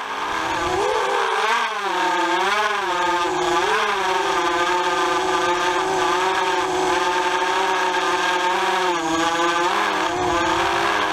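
FPV racing quadcopter's electric motors and propellers whining as picked up by its onboard camera, the pitch wavering up and down with the throttle and holding steadier through the middle, over a rush of propeller noise.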